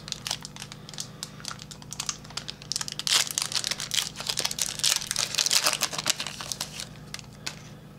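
A foil trading-card pack wrapper crinkling and rustling as it is handled and opened, a dense run of sharp crackles that stops about seven and a half seconds in.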